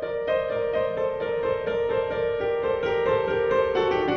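Piano music: an evenly paced run of struck notes, several a second, over held notes.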